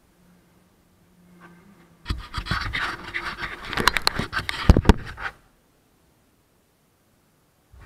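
Close handling noise at the kart-mounted camera: scraping and rustling with a few sharp knocks for about three seconds, starting about two seconds in, as the camera is brushed and moved. The kart's engine is not running.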